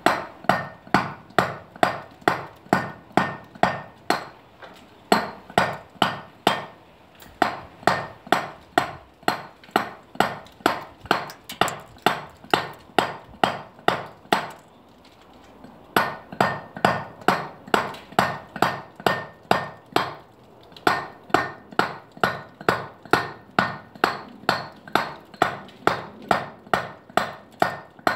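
Mallet blows on a hand chisel carving limestone, about three sharp strikes a second. There are short breaks about five and seven seconds in, a longer pause around halfway, and another brief break later.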